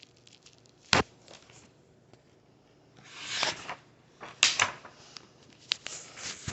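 Pages of a picture book being handled and turned: a sharp knock, then a papery swish and a few sharp clicks.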